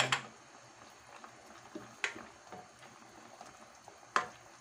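Coconut milk boiling in a pot, a faint steady bubbling, with three sharp clinks of a utensil against the pot: at the start, about two seconds in, and near the end.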